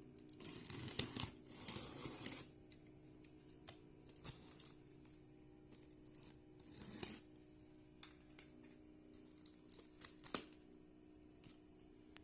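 Packaging being torn open and handled: two bursts of tearing and crinkling in the first two seconds, another rustle about seven seconds in, and scattered small clicks and knocks between.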